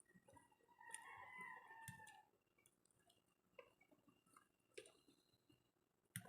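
Near silence broken by one faint, drawn-out call lasting about a second, starting about a second in, and a few light clicks.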